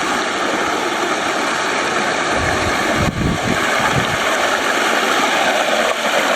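Mountain stream running: a steady rush of water, with low rumbles near the start and again about three seconds in.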